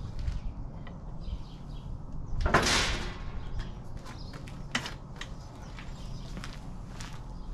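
Scattered light clicks and knocks of hands working at a dune buggy's rear tire, with one louder rush of noise, like a scrape, lasting about half a second, about two and a half seconds in.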